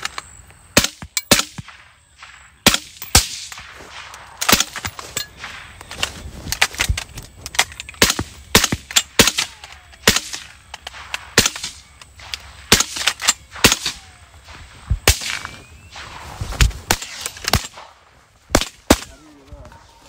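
A volley of rifle fire from several shooters at once, among them a suppressed .223 AR-15: dozens of sharp shots at irregular spacing, often in quick pairs and clusters, thinning out near the end.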